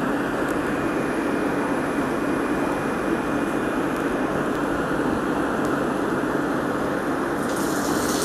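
Steady rushing and bubbling of air rising through an aquarium sponge filter's lift tube, with a low steady hum underneath. Near the end a brief, sharper hiss comes in.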